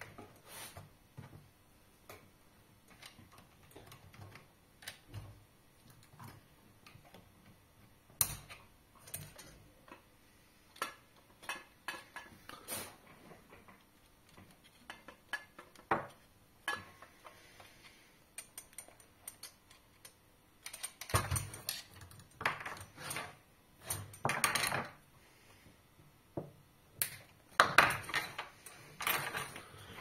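Scattered clicks, taps and clatter of the plastic frame and metal parts of an electric cigarette-making machine being handled and screwed together by hand during a limit-switch replacement, busier and louder in the last third.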